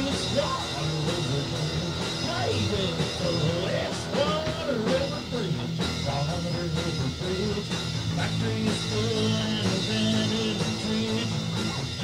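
Rock music with singing.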